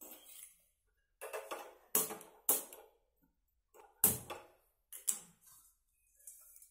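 Metal cookware clanking as a kadai (wok) and pots are handled and set down: a string of sharp, irregular knocks with brief metallic ringing, the loudest about four seconds in.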